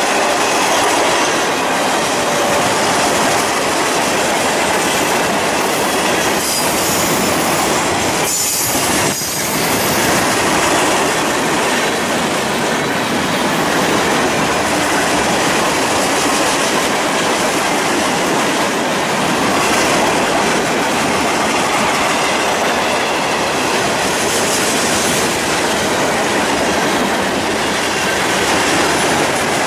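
Freight train of tank cars, boxcars and covered hoppers rolling past at speed: a loud, steady rolling noise of steel wheels on rail.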